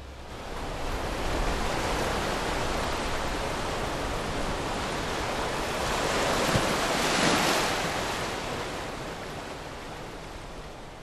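Ocean surf washing onto a beach: a steady rush that builds up, swells in the middle and fades out near the end.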